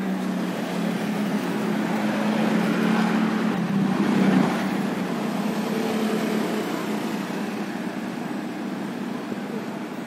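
A motor vehicle's engine passing along the road, with a steady hum that grows louder toward a peak about four seconds in and then slowly fades away.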